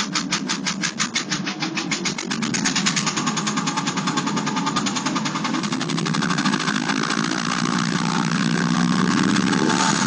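Porsche 996 Carrera 4's 3.6-litre flat-six running with a rapid, rhythmic knocking, about ten knocks a second at first, that quickens over the first few seconds. It is the abnormal engine noise of a failed engine, which the owner says needs a short-block replacement.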